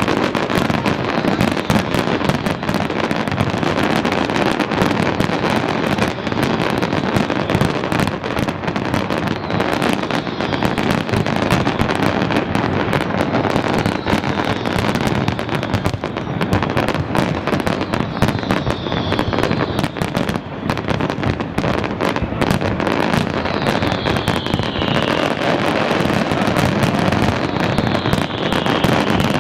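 A dense fireworks barrage: a continuous rattle of bangs and crackling from many shells bursting at once. A few falling whistles sound in the second half.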